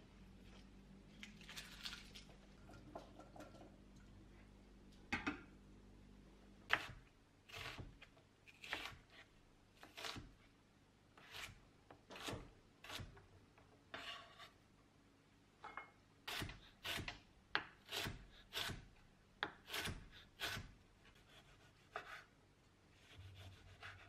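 Chef's knife slicing garlic cloves on a wooden cutting board: a run of sharp knocks, about one and a half a second, that starts after some six seconds of soft rustling and scraping.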